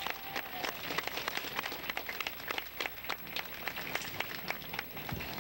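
Many sharp clicks and taps, several a second and not quite in step: a drill squad's shoes striking the street pavement as it marches.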